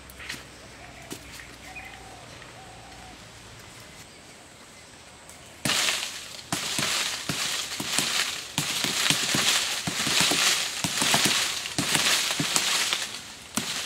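Quiet at first with a few light clicks, then about halfway through a sudden loud clattering and rustling starts and goes on, with many rapid knocks: bamboo poles and a wooden frame being shaken and struck.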